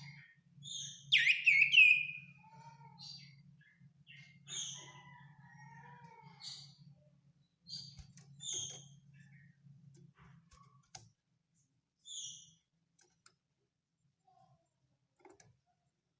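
Common iora (cipoh) calling in short, high whistled notes and chirps. A loud run of sliding whistles comes about a second in, then paired notes every one to two seconds. A low steady hum runs under the first part and stops about eleven seconds in.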